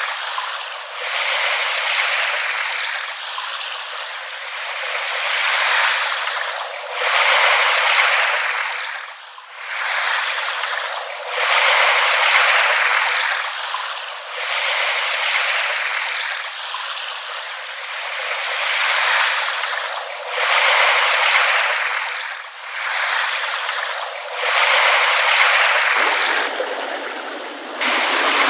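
Small waves lapping on a shore, each wash swelling and falling away every few seconds. The sound is thin, with no low rumble.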